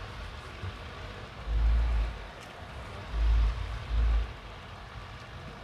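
Garments being lifted and shaken out right at a clip-on microphone, giving fabric rustle and three short low rumbling bumps of mic handling noise, the first about one and a half seconds in.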